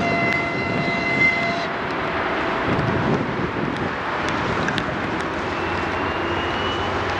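TEP70 diesel locomotive working hard under power, its engine a steady roar with black exhaust smoke showing it is under heavy load. A high steady tone with overtones sounds for the first second and a half.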